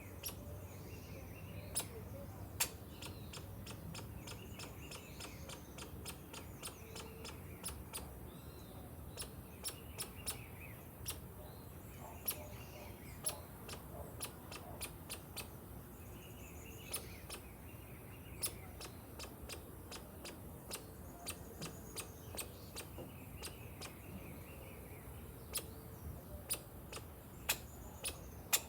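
Many sharp, irregular clicks and cracks, several a second at times, with birds chirping faintly in the background.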